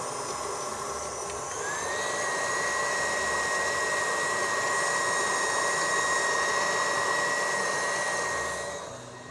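Electric stand mixer running, beating butter, sugar and eggs for muffin batter: a steady motor whine that rises in pitch and gets louder about a second and a half in as the speed goes up, then drops off near the end.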